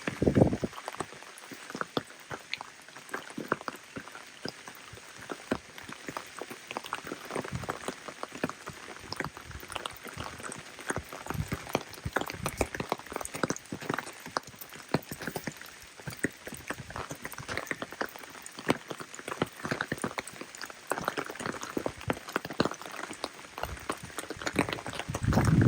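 Rain falling steadily, with many irregular single drops striking close by. There is a louder low thump just after the start and another near the end.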